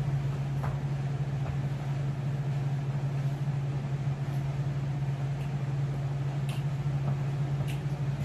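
Steady low machine hum from a household appliance or ventilation, with a few faint ticks near the end.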